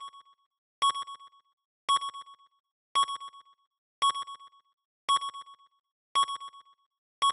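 Electronic intro sound effect: a short, high beep repeating about once a second, each beep trailed by two or three fading echoes.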